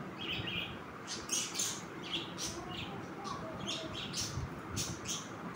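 Small birds chirping in the background: a dozen or so short, high chirps at irregular intervals, over a faint low rustle of handling.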